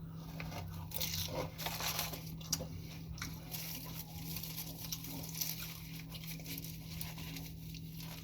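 Close-up eating sounds: irregular crunchy chewing and biting of fast food, mixed with crackling of paper and plastic takeout packaging.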